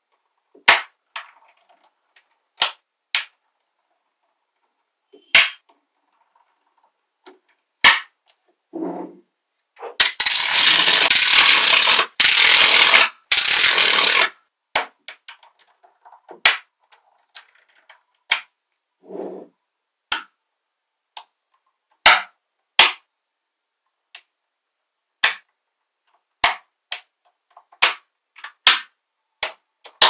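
Small magnetic balls snapping onto a block of magnetic balls: sharp clicks at irregular intervals, with a dense clattering rattle lasting about four seconds near the middle.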